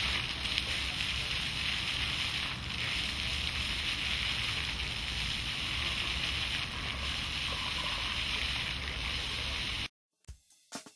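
Water jets of a pavement fountain splashing onto wet paving as a steady rushing hiss. It cuts off suddenly near the end, and music with sharp drum beats starts.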